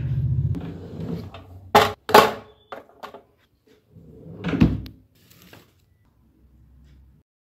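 Handling sounds at a desk: a low rumble at first, then two sharp clicks about two seconds in, followed past halfway by a desk drawer being pulled open with a knock.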